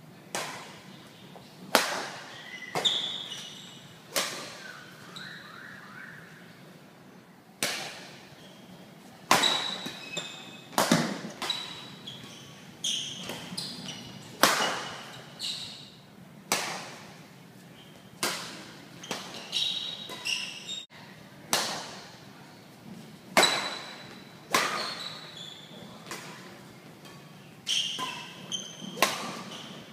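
Badminton rackets striking a shuttlecock in a rally: sharp smacks at irregular intervals, every second or two, each with a short ring in the hall. Short high squeaks fall between some hits, typical of court shoes on the floor.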